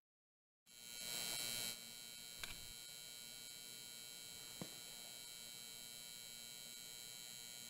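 Electrical buzz of a neon sign and its transformer switching on. The steady hum starts suddenly under a second in, is loudest for about the first second, then settles, with two small clicks along the way.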